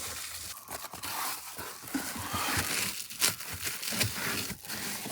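Crinkling and rustling of a window cover being handled and pressed into an SUV window, with irregular small crackles and clicks.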